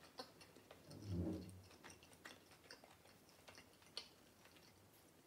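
Close-up chewing of a bread-and-goat-cheese canapé: faint wet mouth clicks and smacks, with a brief low hum about a second in and a sharper click near the end.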